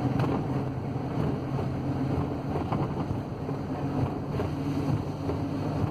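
Ford Transit van's diesel engine running steadily under way, heard from inside the cab with road noise, and a couple of faint knocks from the van.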